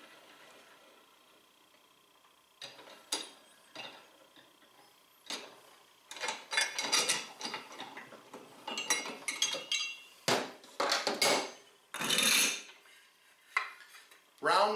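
Steel tool parts and clutch parts clinking, clanking and scraping as a clutch compression tool is unthreaded and lifted off a Polaris RZR XP 1000 secondary clutch and set down on the bench. After a quiet start come a few separate clicks, then a busy run of metal knocks, some of them ringing briefly.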